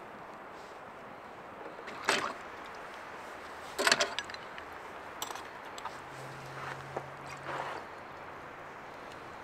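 Metal utensils knocking and scraping against a nonstick frying pan as it is cleaned out, with two sharp clatters about two and four seconds in, then lighter clinks and scrapes.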